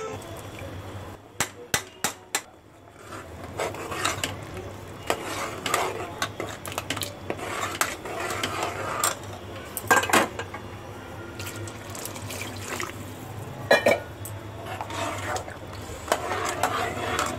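A metal spoon stirring liquid kadhi in a pressure cooker, scraping and sloshing, with sharp clinks of metal on the pot: a few quick ones about two seconds in and the loudest about halfway through and near fourteen seconds. A low steady hum runs underneath.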